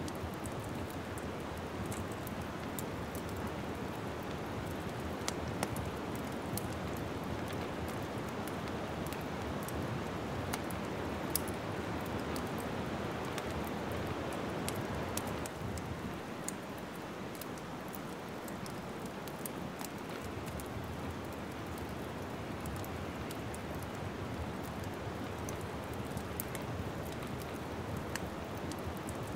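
Wood fire crackling in a fireplace: a steady rushing hiss of burning logs with frequent small pops and snaps. The rushing eases a little about halfway through.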